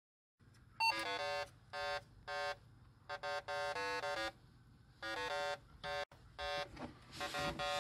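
Electronic intro jingle: a run of short, bright synthesized chord stabs in an uneven rhythm over a faint low hum, with a noisier stretch near the end.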